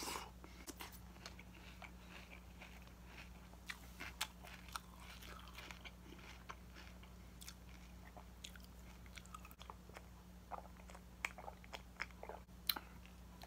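A person chewing a mouthful of cereal and milk: soft scattered crunches and small mouth clicks over a low steady hum.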